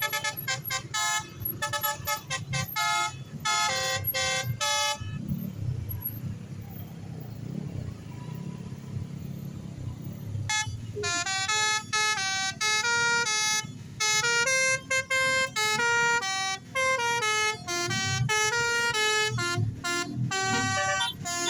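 Bus telolet horn, a multi-tone Basuri air-horn set, playing a tune of short tooting notes for about five seconds. It stops, leaving a low rumble, then starts again about halfway in and plays a longer melody of changing notes.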